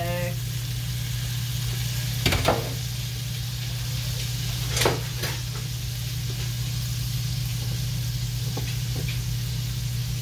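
Shaved steak, onions and green peppers sizzling in a frying pan under melted provolone, with a steady low hum beneath. A few sharp clicks of metal or glass cut in, the loudest about two seconds in and again near five seconds.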